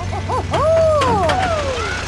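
High-pitched cartoonish vocal exclamation: two short yelps, then a long call that rises and slides down, over a steady low hum.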